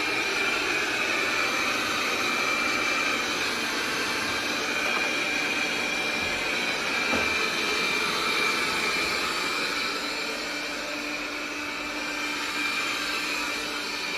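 iNIC i9 robot vacuum running, a steady suction-motor hum with a high-pitched whine.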